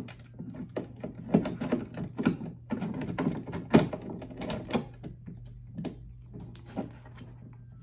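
Small metal spanner clicking and knocking against a nut and bolt as it is worked to tighten the bolt through the hard plastic body of a ride-on push car: irregular sharp clicks, the loudest a little under four seconds in, fewer near the end. A steady low hum runs underneath.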